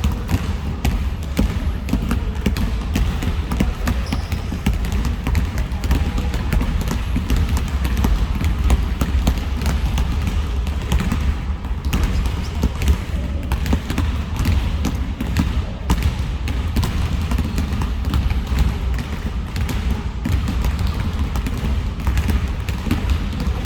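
Many basketballs being dribbled at once on a gym floor: a dense, continuous run of overlapping bounces with no single rhythm.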